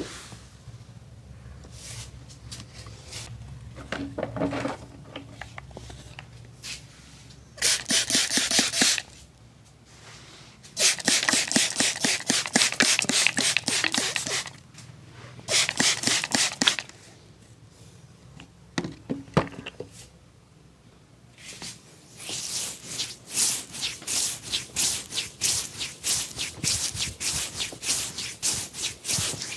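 A barber's hands working over a head and hair in a massage: bursts of quick, rapid strokes a second to several seconds long, with short pauses between, the last burst the longest.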